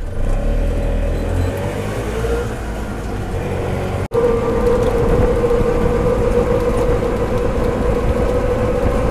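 Auto-rickshaw engine running and road noise from inside the moving auto, a steady low rumble. The sound breaks off for an instant about four seconds in and resumes with a steady hum at one pitch.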